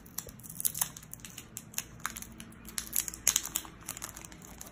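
Thin clear plastic protective film being peeled off a smartwatch, crinkling and crackling in irregular small clicks.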